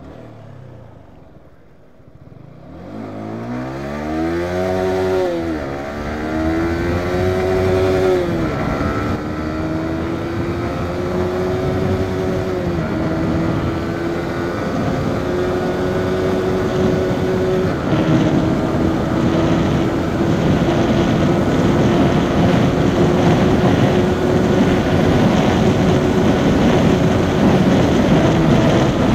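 Yamaha R15 V4's single-cylinder 155 cc engine accelerating at full throttle. Starting about two seconds in, its pitch climbs through each gear and drops at each of about five upshifts, then holds a high, slowly rising note in top gear, with wind rushing over the microphone.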